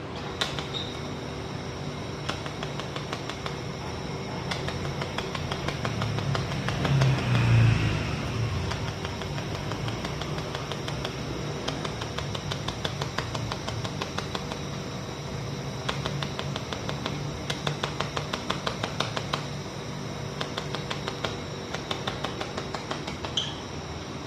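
Pulsed laser welder firing in runs of rapid, evenly spaced clicks, one per pulse, over the steady hum of the machine. A louder low rumble comes about seven seconds in.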